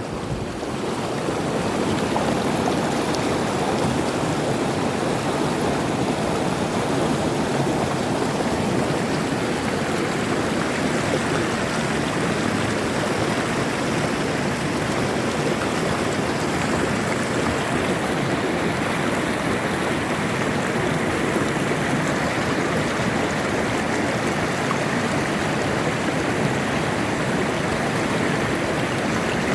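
Stream water flowing, a steady, even rush with no change.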